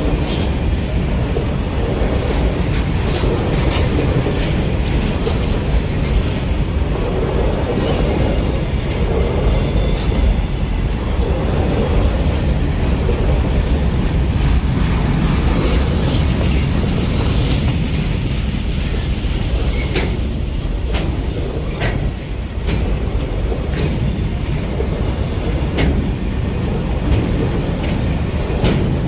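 Freight train of BCNA covered wagons rolling past: a steady heavy rumble of wheels on the rails, broken by sharp clacks as the wheels cross rail joints.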